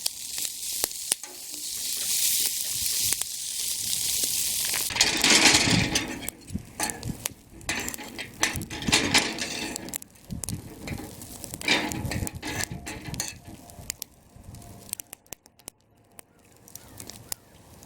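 Hash browns sizzling in a hot pan over a campfire, a strong hiss for about the first five seconds, then fainter sizzling broken by short clicks and knocks.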